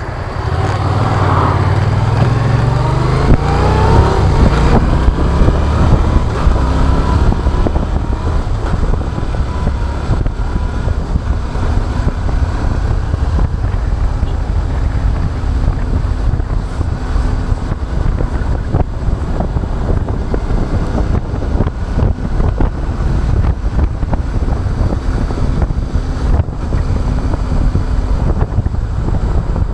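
Yamaha MT-07's parallel-twin engine accelerating, its pitch climbing over the first few seconds. It then runs steadily under way, with heavy wind noise on the microphone.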